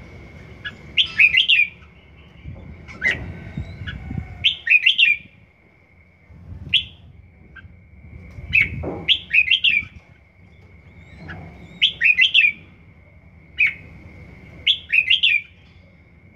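Red-whiskered bulbul singing short, quick warbled phrases, repeated every second or few seconds. It is a young bird in its first season, practising its song.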